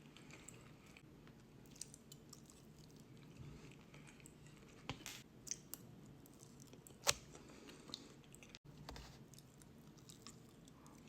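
Close-up soft chewing of Spanish tortilla (potato-and-egg omelette), with scattered small wet mouth clicks and one sharper click about seven seconds in.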